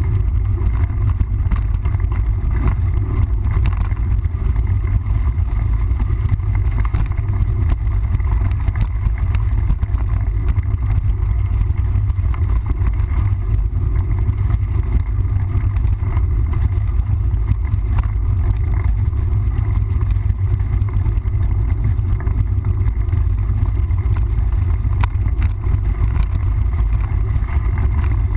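Steady low wind rumble buffeting the microphone of a camera riding along on a mountain bike.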